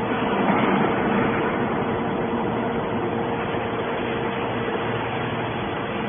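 Hydraulic scrap metal baler running: a steady machine noise with a constant hum from its motor and pump.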